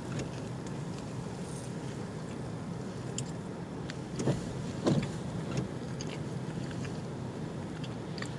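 Steady low hum inside a car's cabin, with a few faint clicks and two short mouth sounds about four and five seconds in as a bagel is chewed.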